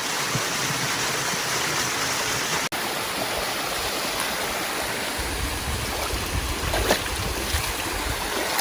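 Steady rush of a waterfall and stream over rocks. The sound cuts out for an instant about a third of the way in, and a low rumble joins it about halfway through.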